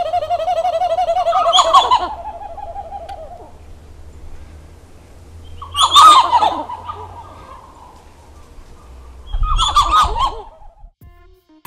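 Titi monkey (Callicebus) calling: a fast run of repeated notes that fades out a few seconds in, and three loud, rougher calls about 2, 6 and 10 seconds in, each lasting about a second.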